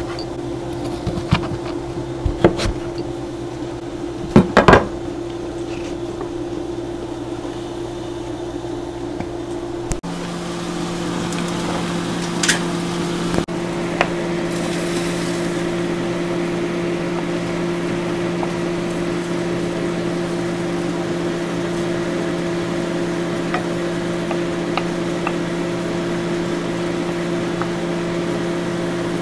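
A kitchen knife chops acorn squash on a wooden cutting board: a few sharp knocks over a steady low hum. After about ten seconds the hum shifts to a different steady pitch, with a few light taps as a wooden spoon stirs a skillet of coconut-milk sauce.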